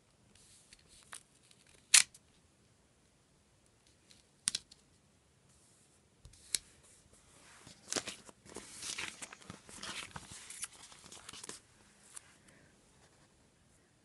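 Paper and sticker sheets being handled: a few separate sharp clicks and taps, the loudest about two seconds in, then about four seconds of continuous rustling and crinkling paper.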